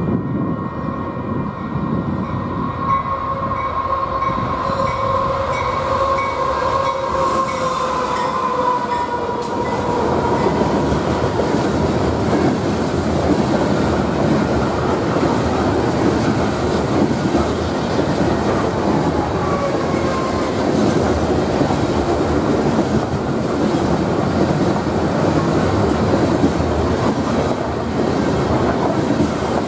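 Union Pacific grain train passing at speed: the lead GE AC44CW and AC45CCTE locomotives go by with a steady tone that drops in pitch about eight seconds in. After that comes the steady rumble and clatter of covered hopper cars rolling over the rails.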